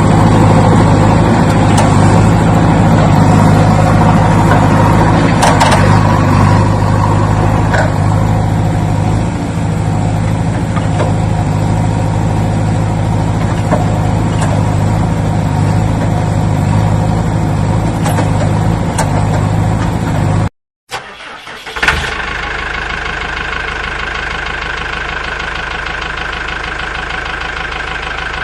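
A vehicle engine runs steadily for about twenty seconds and then cuts off abruptly. After a brief gap a second engine note starts with a sharp onset and settles into a steady idle.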